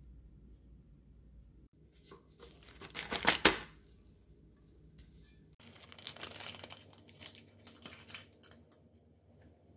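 Baking paper being peeled and crinkled away from the sides of a baked sponge cake. There is a loud crackle about three seconds in, then lighter, repeated rustling.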